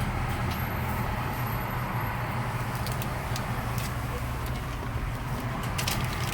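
Car engine idling steadily, a low hum heard from inside the cabin, with a few brief clicks and small knocks, the clearest near the end.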